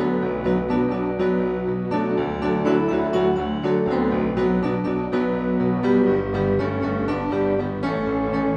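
Electronic keyboard played with a piano sound, both hands going: a steady run of notes and chords over held bass notes.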